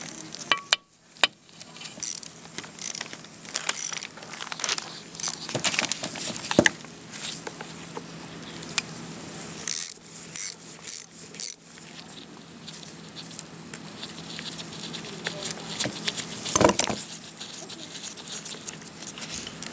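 Irregular metal clicks and clinks as a wrench works the long through-bolt loose from a Ford starter motor's metal housing, with the bolt being handled and drawn out.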